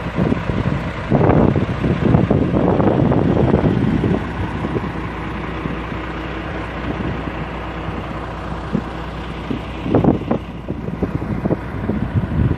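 Wind buffeting the microphone in gusts, loudest from about a second in to four seconds and again briefly about ten seconds in. Under it is the steady low hum of a Volvo logging truck's diesel engine idling.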